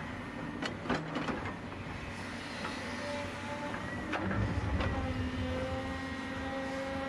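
Volvo EC210BL excavator's diesel engine running with a steady hydraulic whine as the boom swings and the bucket goes down into clay. A few sharp knocks and scrapes from the bucket come around a second in and again about four seconds in, when the engine note grows louder and deeper as the bucket digs.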